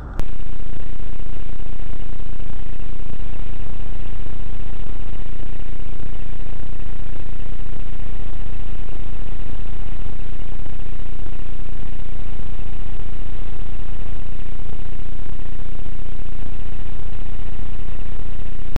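Loud, unvarying engine and road noise picked up inside a car by a dashcam microphone, cutting off suddenly at the end.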